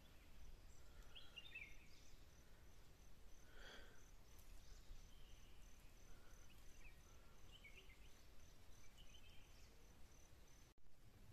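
Faint woodland ambience: an insect chirps in a steady, evenly spaced high pulse, with a few short bird chirps and a low rumble of wind. The sound cuts out for a moment near the end.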